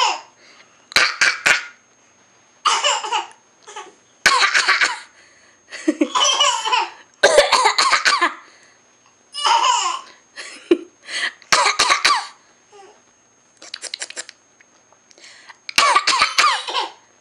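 Deliberate fake coughing: a dozen or so short, forced coughs in bursts with pauses between, mixed with laughter.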